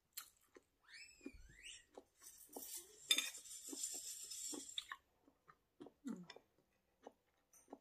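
Eating from a bowl of vegan ramen close to the microphone: utensils clink and knock against the dish again and again, with a hissing stretch of about two seconds in the middle.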